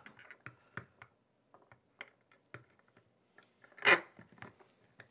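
Light clicks and knocks of a grey plastic TOTO Neorest toilet flange adapter being set down on the floor flange and shifted into place by hand, with one louder knock about four seconds in.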